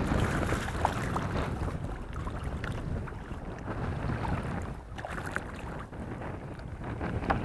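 Wind buffeting the microphone over water moving around a kayak on the sea, with a few faint clicks.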